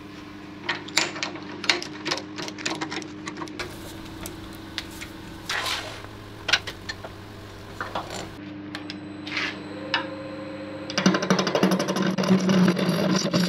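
Scattered clicks and knocks from mounting a resin-and-wood mug blank on a Laguna 18/36 wood lathe, over a steady hum. About eleven seconds in the spinning blank meets the gouge and a louder, continuous scraping of the cut takes over.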